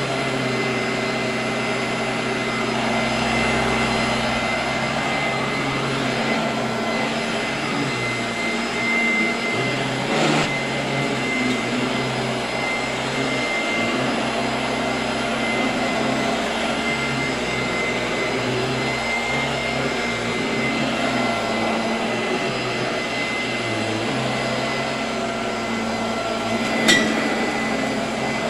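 Royal 18-inch vacuum cleaner running steadily with a high motor whine, and a single sharp click near the end.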